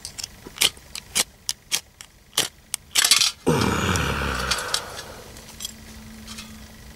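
A quick series of sharp scraping strikes, about eight in three seconds, from a ferro rod (firesteel) struck to throw sparks onto magnesium shavings beside Esbit fuel tablets. About three and a half seconds in comes a sudden loud rush of noise that fades away over a second or two.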